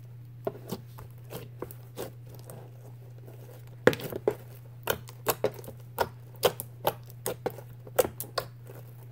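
Green foam-bead slime being pressed and poked with the fingers: irregular sharp clicks and pops, coming faster from about four seconds in, over a steady low hum.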